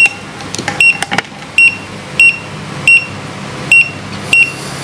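Digital multimeter giving short high beeps, about one every 0.7 s, as its selector dial is turned to the capacitance setting, with a couple of clicks about a second in.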